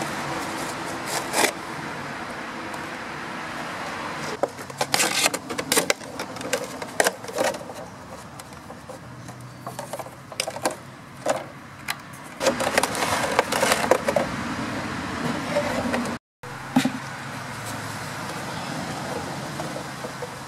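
A clear plastic 2-litre pop bottle being handled, crinkling and clicking in spells of short crackles through the middle, over a steady background hum.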